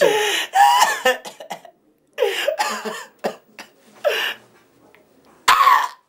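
A man's voice in short, loud outbursts with coughing, broken by brief pauses.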